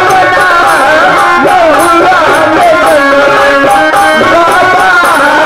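Live sohar folk song: a wavering sung melody over held harmonium tones, with hand drum and small cymbals keeping a steady beat.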